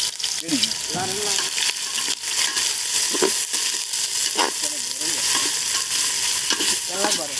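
Duck curry sizzling in a cooking pot as it is stirred, with a steady hiss and many short clicks of the spoon scraping and knocking against the pot.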